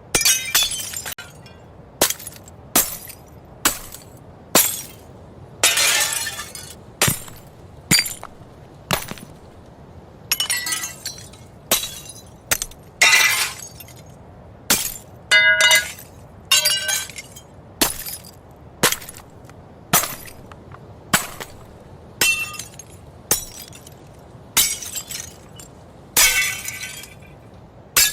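Glass breaking and shattering, one separate smash after another about once a second, some followed by a longer tinkle of falling shards and ringing glass.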